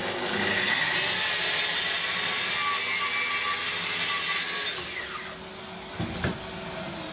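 Festool TS55 tracksaw spinning up and cutting through wood, a steady whining cut that holds for about five seconds before the motor is released and winds down. A couple of knocks follow as the saw is set down.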